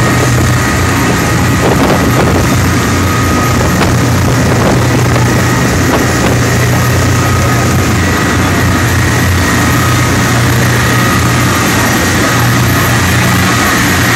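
Boat engine running steadily, with a low hum and a thin steady whine, under a loud, even rush of storm wind and rain.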